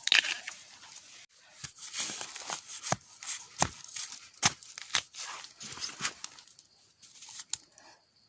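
Dry leaves and brush rustling and crackling as they are disturbed, with several sharp snaps or cracks.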